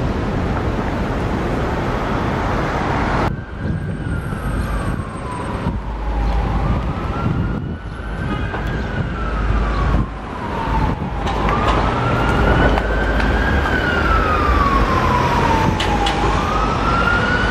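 An emergency vehicle's siren in a slow wail, its pitch gliding up and down about once every five seconds, over the steady rumble of street traffic. The siren comes in about three seconds in.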